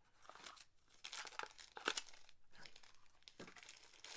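Mystery pin box packaging crinkling and tearing as it is ripped open by hand, in irregular crackles, the sharpest about two seconds in.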